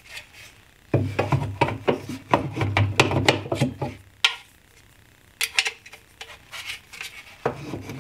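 A shelf-pin drilling jig and a metal shelf pin being handled against a wooden cabinet side, setting the pin in the drilled hole to hold the jig: irregular clicks, taps and rubbing, densest from about a second in to about four seconds in, with a few scattered clicks after.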